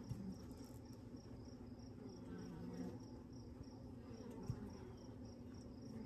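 Honeybees buzzing faintly on a comb frame lifted from an open Layens horizontal hive: a soft, wavering hum.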